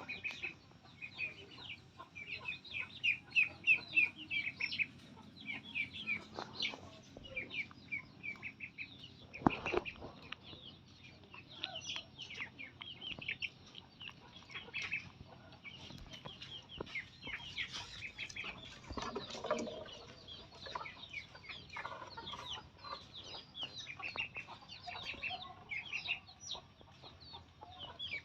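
Rapid, high-pitched animal chirps and peeps, several a second, going on throughout, with one sharp knock about a third of the way in.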